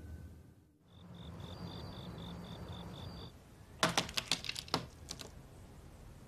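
A cricket chirping in short, even pulses, about four a second, over a low hiss. Then, a little after halfway, a quick run of sharp clicks and knocks from a wooden door's latch as the door is worked open.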